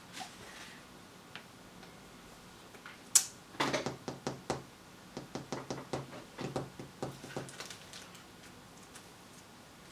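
Small clicks and taps of electronic components and their wire leads being handled at the workbench: one sharp click about 3 s in, then a run of irregular light clicks and rattles for about four seconds.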